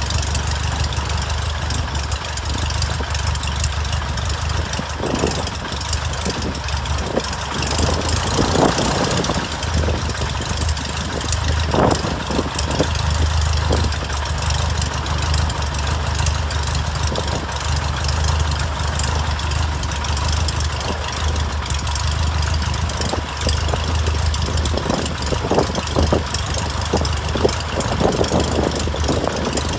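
Aeronca Champ's air-cooled flat-four engine idling steadily with its propeller turning, a low even throb. A few brief louder bursts break in now and then, more of them near the end.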